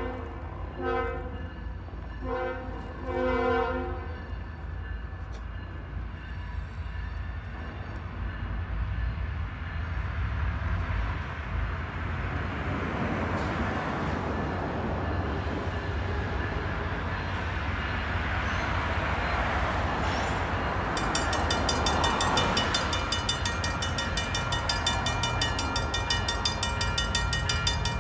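Diesel locomotive air horn sounding three blasts, the last the longest, then the rumble of CN's approaching locomotives building steadily louder. About three-quarters of the way in, the grade-crossing signal bell starts ringing rapidly and keeps on.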